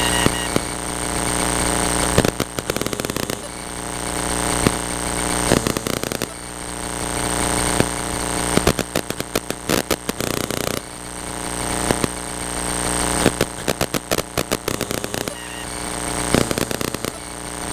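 Cessna 152's four-cylinder Lycoming engine running steadily in flight, heard from inside the cockpit, with a thin high whine. Bursts of rapid crackling clicks recur every few seconds over the engine.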